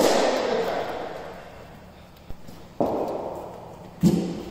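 Sharp cracks of cricket ball and bat in indoor nets, from a bowling machine session: one at the start and another about three seconds in, each dying away slowly in the hall's echo, with a small tap between them and a louder knock near the end.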